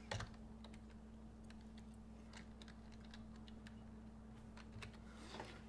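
Faint, scattered computer keyboard keystrokes, a few light taps while a typo in the code is fixed, over a steady low hum.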